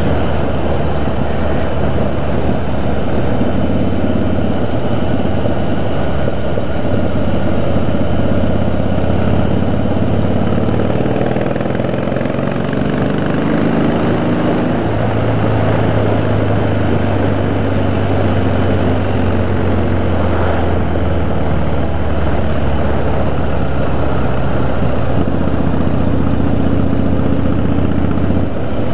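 Harley-Davidson V-twin engine running steadily while the motorcycle is ridden along the road, its note changing pitch about halfway through.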